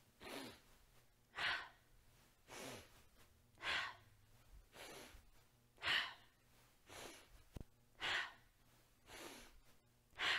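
A woman breathing hard and rhythmically: deep inhales through the nose alternate with exhales out through the mouth, about one breath a second, every other breath louder. This is an energising twisting breath, the lungs filling and emptying with each turn of the body.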